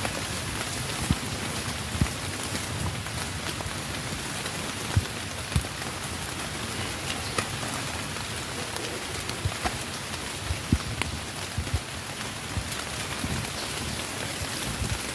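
Steady rain-like hiss, with short dull low thuds scattered through it.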